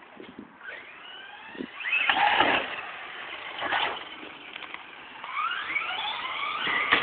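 Brushless electric motor of a Traxxas Slash RC truck on 3S LiPo power, a Mamba brushless setup, whining higher in pitch as it accelerates, twice: about a second in and again from about five seconds. Louder rushes of noise come about two seconds in and near the end.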